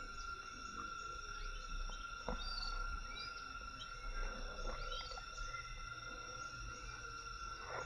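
Tropical forest insects droning in a steady high chorus, with short bird chirps over it and a low rumble. Two faint knocks come about two seconds in and near the end.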